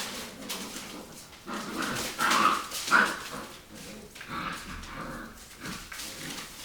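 Rottweiler puppies play-fighting, with yips and small barks in short irregular bursts, loudest about two to three seconds in.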